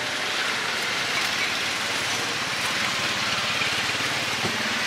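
Steady roadside traffic noise, an even hiss and rumble of passing vehicles with no distinct events.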